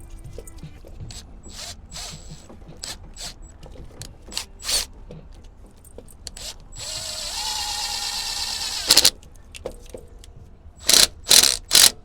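Tools working on the reefer unit's starter: scattered clicks and metal taps, then a small power tool whirring for about two seconds with its pitch rising, followed by several loud metal clanks near the end.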